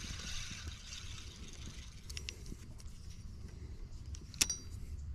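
Fishing reel and tackle being handled: a soft hiss in the first second, a few light clicks, then one sharp metallic click with a brief ring about four seconds in, over a steady low rumble on the microphone.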